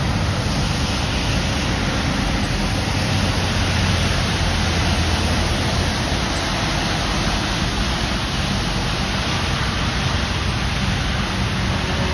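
Tractor-trailer trucks driving past on a rain-soaked road: a steady hiss of tyres spraying on wet pavement over a low diesel engine rumble, which swells around four to five seconds in.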